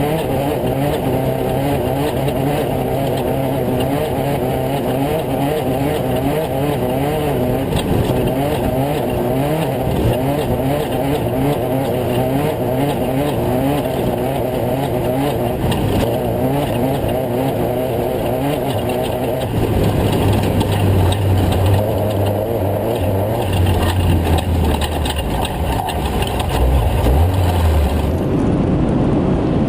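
Off-road race truck engine revving up and down under hard driving. About two-thirds of the way through, the sound changes abruptly to a deeper, steadier drone, and it changes again just before the end.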